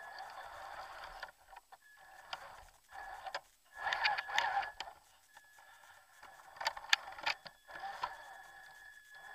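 Traxxas TRX-4 RC crawler heard from its onboard camera: a steady high-pitched electronic whine from the speed controller, broken by several short bursts of motor and gear whir with crackling of dry leaves as the truck drives forward in spurts.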